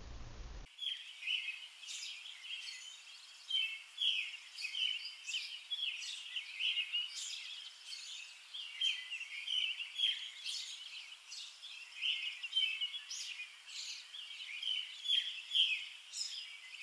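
Birds chirping and singing in a steady run of short, high calls.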